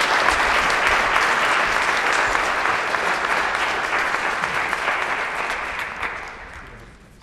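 Theatre audience applauding, the clapping dying away over the last couple of seconds.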